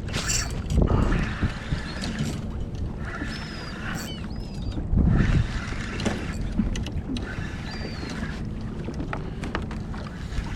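Wind on the microphone and water around a kayak, with a short swish of a cast right at the start, a spinning reel cranking in several stretches as a topwater lure is worked, and a few short high calls from seabirds working over the fish.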